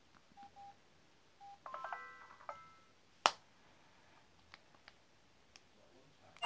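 Flip mobile phones being handled. Two short keypad beeps, then a quick run of electronic tones a little under two seconds in, then a sharp snap of a phone's flip about three seconds in, and a few faint clicks.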